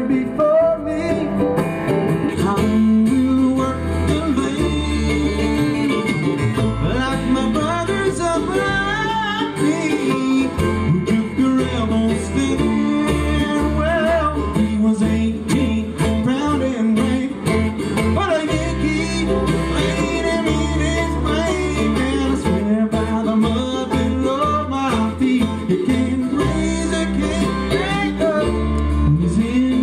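Live bluegrass band playing: upright bass, banjo, mandolin and acoustic guitar under a male lead vocal, sung by the bassist.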